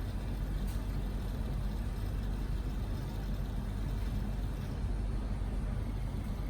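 Steady low hum under a constant even hiss, unchanging throughout.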